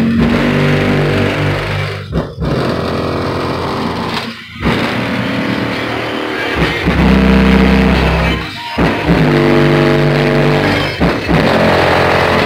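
Bass-heavy music played at high volume through a Mitsubishi Eclipse's competition car-audio system, driven by a Kicker Solo-X 18-inch subwoofer. Long, deep bass notes are broken by short dropouts every two to four seconds.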